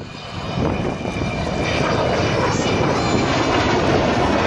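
Jet noise from the four Rolls-Royce Olympus turbojets of an Avro Vulcan bomber flying past. It grows louder through the first second, then holds loud and steady, with a faint high whine over it around the middle.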